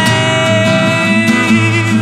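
Acoustic band music: acoustic guitar over electric bass, with a long held note running through.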